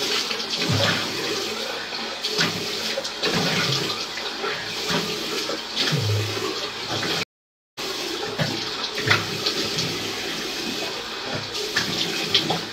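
Tap water running into a bathroom washbasin, with splashing as hands scoop water to wash a soaped face. The sound drops out completely for about half a second around seven seconds in.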